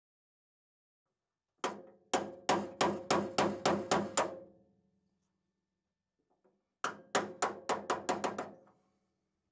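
Hammer taps driving a new steering-shaft bearing into its housing in a Porsche 911 body shell. A run of about nine sharp taps, roughly three a second, each with a short ring, then after a pause a second, quicker run of about eight.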